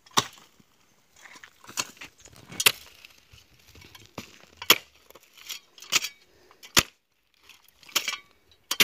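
Two-handled clamshell post-hole digger being driven into dry red soil: about eight sharp metal-on-earth strikes, irregularly spaced about a second apart, with softer scraping of dirt between them.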